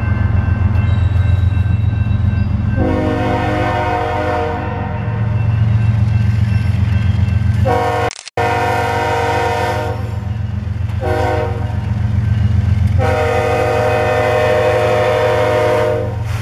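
Canadian Pacific GE ES44AC diesel locomotive passing a grade crossing, its engine rumbling low while the air horn sounds the standard crossing signal: long, long, short, long. The sound cuts out for a split second about eight seconds in.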